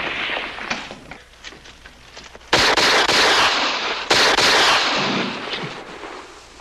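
Battle sound effects: scattered gunshots, then two sudden loud blasts about a second and a half apart, each lasting about a second before dying away.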